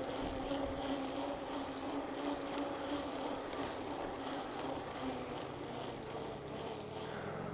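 Bicycle rolling along a woodland trail: steady tyre and drivetrain noise with a faint low hum.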